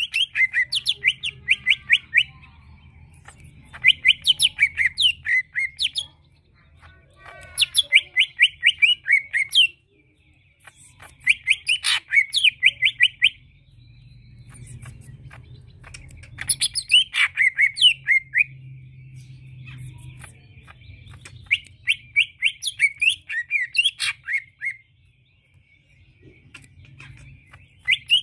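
Male green leafbird (cucak ijo) singing: bursts of rapid, sharp, high chattering notes, each burst about two seconds long and coming roughly every four seconds.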